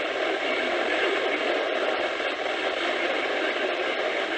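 Steady radio static from a weather radio tuned to a weak, distant NOAA Weather Radio signal. The hiss is even and narrow-band, with no words coming through.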